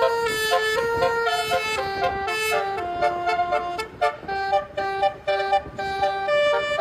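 Basuri telolet horn, a multi-note musical air horn, playing a quick melody of short notes that step up and down in pitch.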